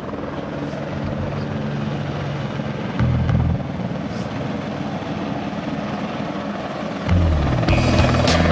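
AS350 B3 Squirrel helicopter flying and hovering low with a slung Bambi bucket, its rotor and turbine heard under background music; the sound gets louder about seven seconds in.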